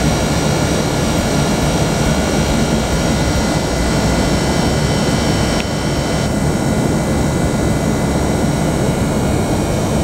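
Steady mechanical whirring with a few thin high whining tones held throughout, one of them shifting slightly about halfway through.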